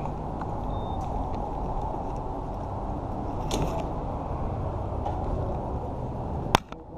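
Steady low rumble, with a sharp click near the end.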